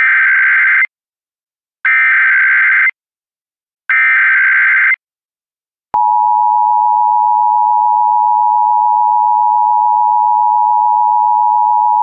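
Emergency Alert System SAME header: three bursts of warbling digital data tones, each about a second long with a second's pause between. About six seconds in, the steady two-tone EAS attention signal starts and holds. Together they announce an emergency alert, here a Child Abduction Emergency (AMBER Alert).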